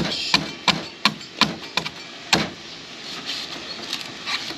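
Machete chopping into the fibrous husk of a coconut: about seven sharp strikes, roughly three a second, then fainter after about two and a half seconds.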